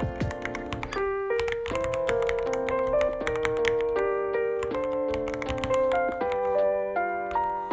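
Typing on a Ducky One 3 mechanical keyboard, a quick irregular run of key clicks, over background music of sustained piano-like notes.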